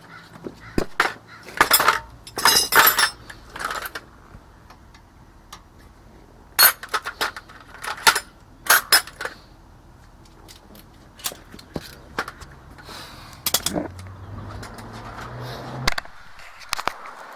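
Scattered sharp metallic clinks and clanks of tools and brake parts being handled during a rear brake job, some with a short ring.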